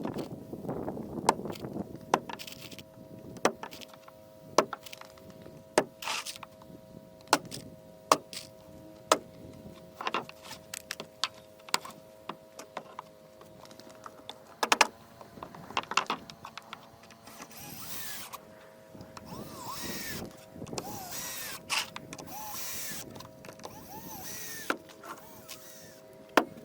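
Winch pulling up a framed wall on a gin pole: a steady motor whine with sharp clicks about once a second. Rougher hissing noise comes in over the second half.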